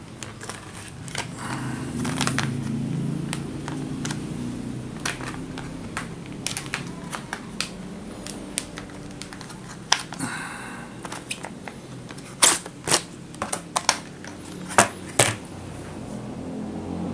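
Clear plastic blister packaging being pried open and handled, giving a scattered run of clicks and crackles. Several louder, sharper snaps come near the end.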